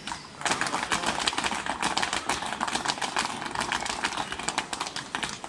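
Flamenco footwork (zapateado) from a group of dancers: heeled shoes striking the pavement in a rapid, dense patter of heel and toe stamps, starting about half a second in.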